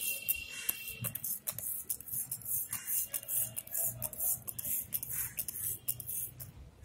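Plastic trigger spray bottle squeezed over and over, each pull a click and a short hiss of soapy-water spray, about two or three a second, stopping shortly before the end.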